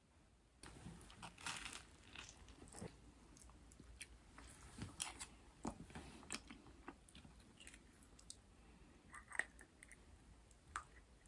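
Faint tableware sounds: a butter knife scraping jam across toast, then a metal spoon clicking against a soft-boiled egg's shell and ceramic egg cup as it scoops out the egg. Irregular soft scrapes and small clicks, the sharpest click a little past the middle.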